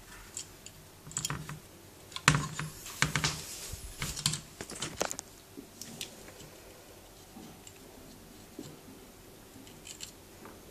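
Clicks and knocks of a Zetagi B300P CB amplifier's metal case being handled and turned on its side on a wooden bench, in a quick cluster with the sharpest knock about two seconds in, then only a few faint ticks.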